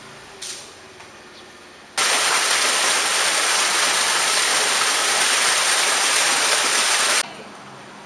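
Water pouring from a small rock waterfall into a koi pond, a steady splashing rush that cuts in sharply about two seconds in and stops just as abruptly about five seconds later.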